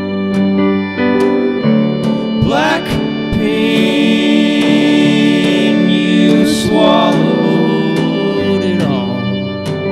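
Live band playing an instrumental passage: sustained chords over a steady beat, with sliding, bending notes about two and a half seconds in and again around seven seconds.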